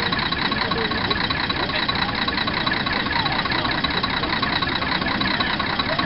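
Nanbu Jukan Railway railbus's diesel engine idling steadily with an even, rapid clatter.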